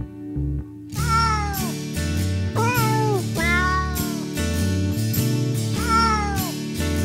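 Recorded cat meows set over an instrumental backing track: a run of drawn-out meows, each rising then falling in pitch, begins about a second in and repeats in time with the music.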